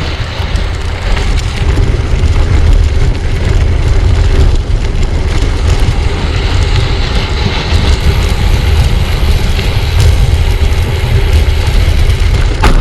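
Steady rumble of wind buffeting a handlebar-mounted action-camera microphone while a gravel bike is ridden, mixed with the noise of the tyres rolling over the road surface.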